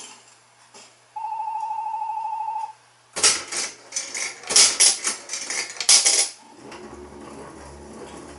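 Bally Wulff FOXX slot machine giving an electronic beep tone of about a second and a half, with a fast warble. Then comes about three seconds of coins clattering out into the payout tray as credit is paid out. A low steady hum follows near the end.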